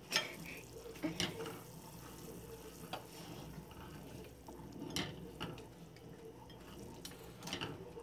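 Spatula stirring a bubbling, caramelizing sugar syrup in a saucepan, with a few sharp clicks scattered through it.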